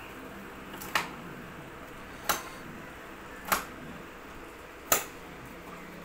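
Four sharp clicks, evenly spaced about a second and a half apart, over a low steady hum.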